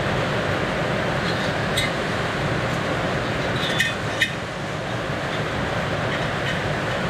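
A few light metallic clinks of small parts and tools being handled, the sharpest about two seconds and four seconds in, over a steady rushing background noise.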